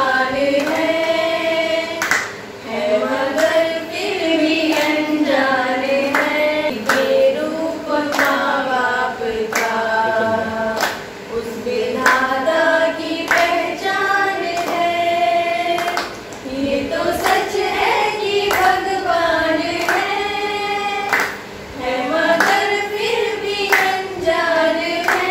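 Several women singing a song together, with regular hand claps keeping time.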